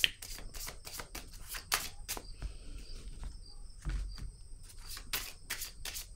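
Tarot cards being shuffled and handled: an irregular run of soft clicks and rustles, several a second.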